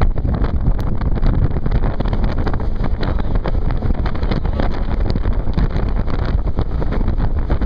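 Steady wind buffeting the microphone over the rush of fast, high-water river current and whitewater, heard from aboard a raft running into a rapid.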